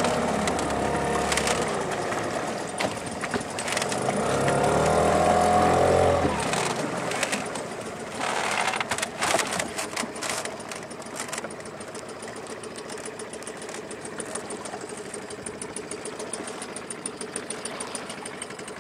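Small outboard motor on an inflatable dinghy running, rising in pitch about four seconds in and stopping about six seconds in. Then a few seconds of splashing, and quieter water sounds.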